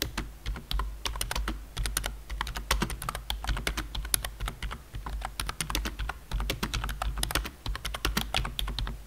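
Typing on a Live Tech Dean low-profile membrane keyboard with round keycaps: fast, irregular key clicks, several a second without a break.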